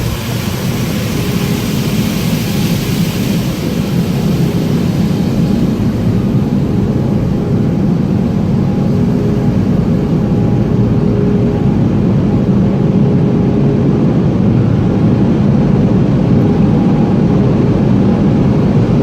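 Automatic car wash heard from inside the car. Water spray hisses on the body and fades out over the first five seconds or so. Then the drying blowers take over with a steady drone and a faint whine, growing slowly louder.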